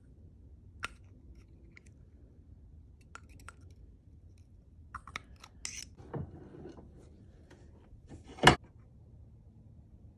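Scattered small clicks and clinks of metal tools and shock parts being handled on a workbench, with a short scrape a little past six seconds and one sharp knock about eight and a half seconds in, the loudest sound.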